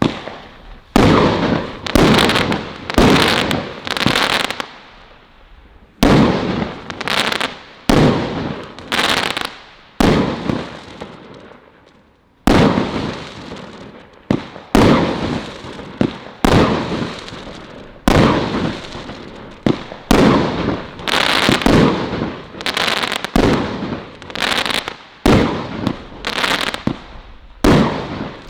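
Colour Crackles firework firing shot after shot, roughly one a second, each burst breaking into crackling that fades over about a second. There are short lulls twice along the way.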